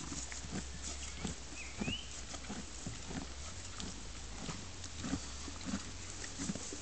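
Horse chewing its feed, a rhythmic crunching about twice a second.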